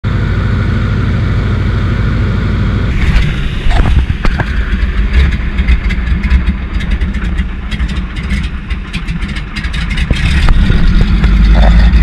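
Single-engine floatplane's engine and propeller running steadily, heard from inside the cabin; about three seconds in the floats touch down on the river and water spray crackles and slaps against the floats under the engine noise as the plane runs on the water.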